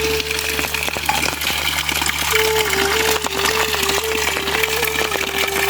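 Steady rushing water, like a stream or heavy runoff. From about two seconds in, a thin melody of held, stepping notes sounds over it.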